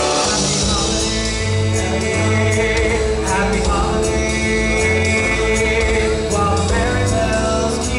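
Ice-show music: a Christmas song with voices singing over a full band and a moving bass line.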